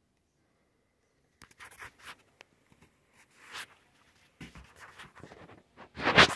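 Handling noise from a phone camera being moved: irregular scratchy rustles and clicks that start about a second and a half in, after near silence. The loudest rustle comes near the end.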